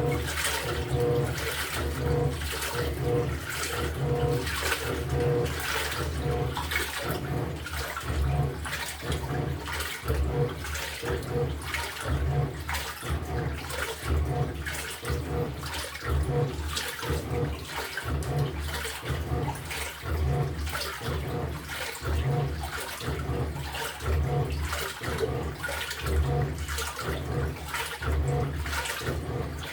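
LG top-loading washing machine agitating a tub of water, the water sloshing and churning in an even rhythm of about two surges a second, with the motor's low hum pulsing along.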